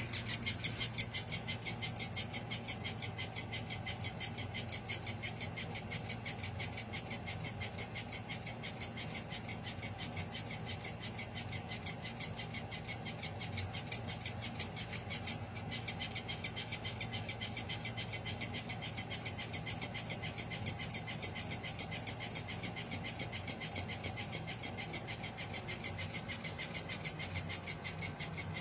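Small toy motor running with a steady hum and rapid, evenly spaced clicking, as from a battery-powered flopping toy fish.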